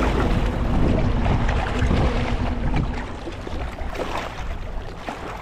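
Strong wind buffeting the microphone, a low uneven rumble that eases a little about halfway through.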